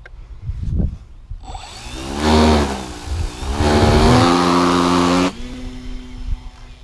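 Electric motor and propeller of an E-flite Valiant RC plane whining loudly, its pitch dipping, then rising and holding high, before it cuts off suddenly.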